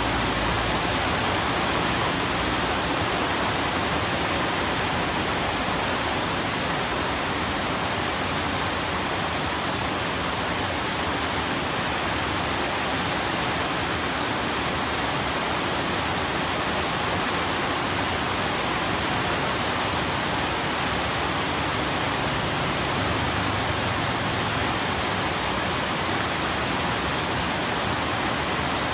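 Steady, even rain noise.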